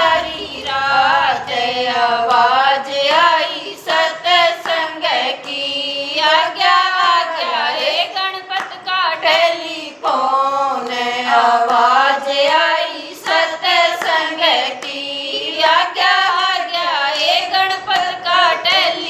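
A group of women singing a Haryanvi devotional bhajan to Ganpati in unison, in long drawn-out melodic phrases. Sharp hand claps keep time throughout.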